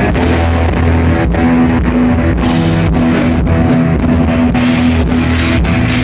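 Live rock band playing loudly at a soundcheck: electric guitar, bass and drum kit, with cymbal crashes now and then.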